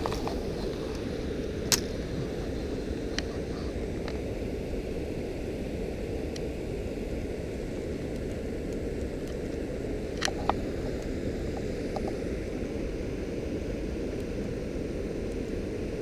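Steady low outdoor rumble, with a few short sharp clicks from the fishing reel and rod as a lure is cast and retrieved, two of them close together about ten seconds in.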